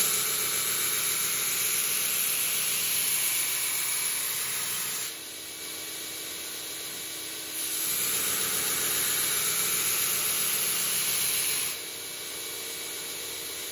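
Belt grinder running a coarse 24-grit abrasive belt, grinding a steel knife blade's bevel held in a jig: a loud, steady grinding hiss for about five seconds, a few seconds of the grinder running unloaded, then a second pass of about four seconds before the blade is lifted off again. This is rough stock removal of the main bevel.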